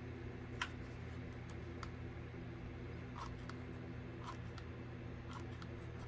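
A handful of light clicks and taps from hands handling a ceramic candle holder and the jute rope wrapped around it, the sharpest a little over half a second in. A steady low hum runs underneath.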